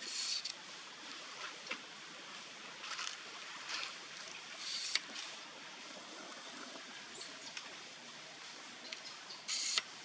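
Macaques in a tree: a few brief, hissy high-pitched sounds, the loudest at the start and near the end, over a steady quiet outdoor background.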